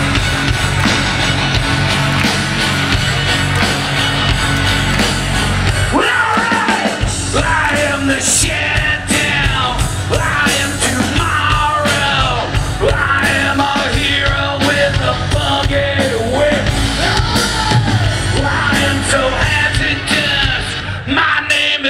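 Live metal band played over a festival PA, recorded from the crowd: loud distorted guitars and drums, with a male vocalist shouting and singing over them from about six seconds in.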